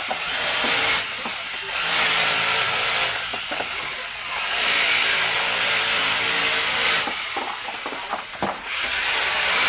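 Electric drill boring into a plastered wall in four runs, separated by short pauses, the longest about two and a half seconds in the middle.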